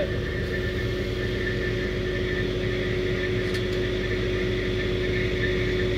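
Crane truck's diesel engine running steadily while it drives the hydraulic boom that lowers a concrete septic tank on its cables. A steady whine sits over the low engine drone.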